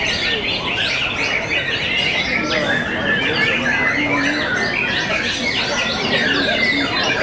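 Caged white-rumped shamas (murai batu) singing, several birds at once: a dense, unbroken run of rapid whistles, trills and chattering notes.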